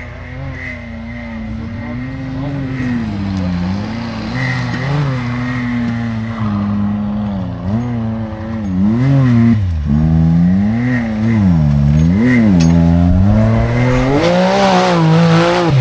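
Off-road 4x4's engine revving up and down again and again, in quick blips past the middle, then held high near the end as it gets louder.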